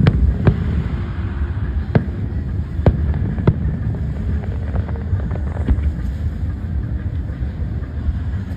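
Aerial fireworks shells bursting: a string of sharp bangs about half a second to a second apart in the first few seconds, then fainter pops. Under them runs a steady low rumble.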